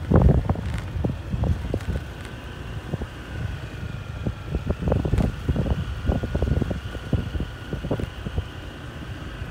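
Wind buffeting the microphone of a moving motorcycle in uneven gusts, over a faint steady whine from the bike.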